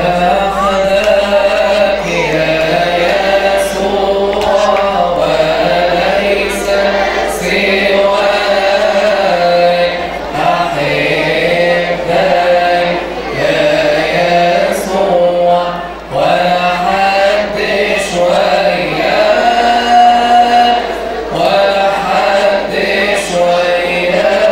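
Voices singing an Arabic church hymn, a steady melody of held notes that moves from pitch to pitch without a break.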